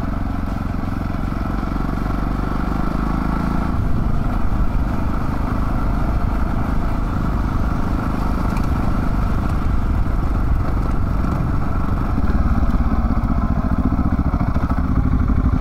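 Adventure motorcycle engine running steadily under way, getting a little louder about three-quarters of the way through.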